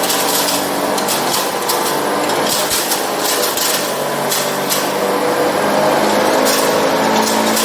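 Masala pulveriser with a 10 HP motor running steadily: a loud, continuous machine hum with irregular sharp clicks and rattles over it.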